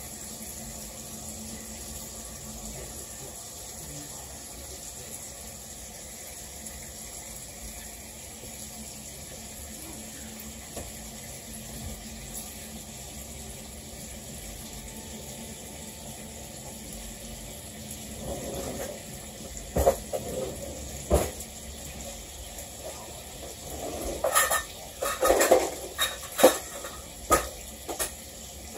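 Kitchen clatter: a series of sharp knocks and clanks of cookware and utensils, starting after a long stretch and coming thickest near the end. Underneath is a steady hiss from the stove where bacon is frying.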